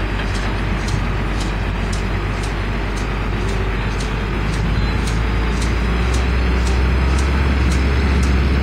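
Truck engines of a heavy articulated dump truck and a pickup truck approaching on a gravel haul road: a steady low engine drone that grows louder from about six seconds in as the pickup draws close. Short high ticks recur about twice a second over it.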